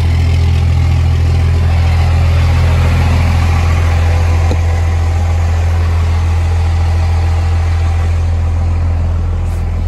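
Cummins straight-six turbo diesel pickup engine idling steadily with an even, deep hum, running smoothly ("burning right"). The sound dulls a little near the end as the microphone moves into the cab.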